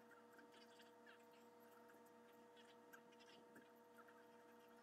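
Near silence: a faint steady electrical hum, with faint small clicks and taps of plastic model-kit parts being handled.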